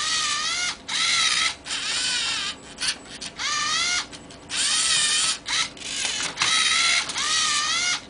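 Lego Mindstorms NXT servo motors whining through their gears as the robot turns and flips a Rubik's Cube. The moves come in a quick series, each under a second, with short pauses between them, and the whine wavers up and down in pitch within each move.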